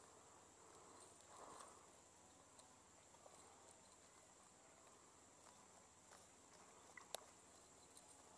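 Near silence with faint handling noises: a cast net's mesh rustling softly and its chain weights clicking lightly as fish are picked out, with one sharper click about seven seconds in.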